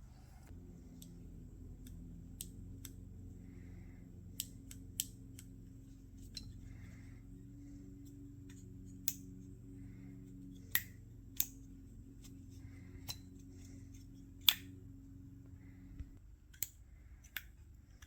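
Scattered sharp clicks and taps, about a dozen at uneven intervals, of small parts and hand tools being handled. Under them runs a faint steady low hum that stops near the end.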